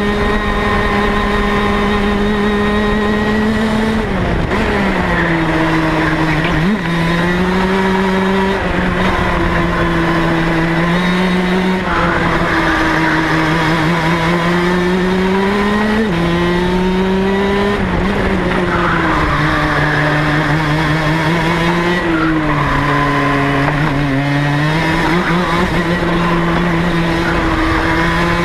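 Rotax DD2 kart's 125cc two-stroke single-cylinder engine running hard on track. Its pitch drops several times as the driver lifts and brakes for corners, then climbs again on the throttle.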